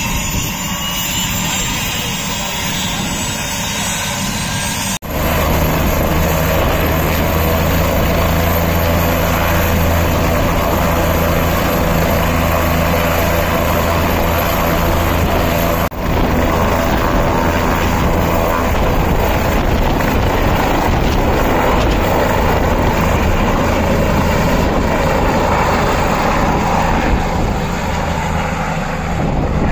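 Helicopter running with its main rotor turning, then lifting off the pad and flying away: a loud, steady rotor and engine noise. It breaks off for an instant twice along the way.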